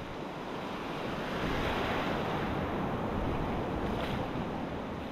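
Surf washing onto a beach: a steady rush of waves that swells a little midway and eases toward the end.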